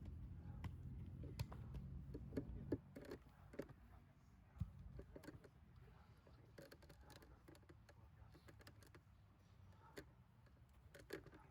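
Near silence: faint background with a low hum that fades after about three seconds, and scattered faint clicks.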